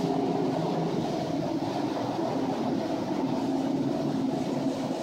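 A steady mechanical drone of heavy machinery running, with several low hum tones held at an even level throughout.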